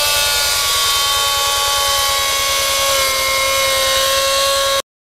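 A motor-driven power tool running steadily with a whine, its pitch shifting slightly about three seconds in; it cuts off abruptly near the end.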